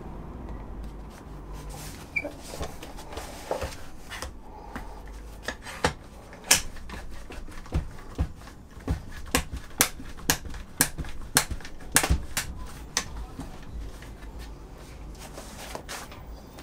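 A one-handed trigger bar clamp clicking sharply as it is pumped tight, two or three clicks a second, clamping a wooden forming press shut. Before that, soft handling and rustling as the press boards are pressed and closed.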